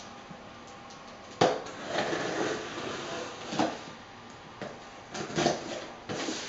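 A Spyderco Tenacious folding knife slitting packing tape along a cardboard box's seam: a scraping, tearing run that starts sharply about a second and a half in, followed by a few shorter cuts and rustles near the end.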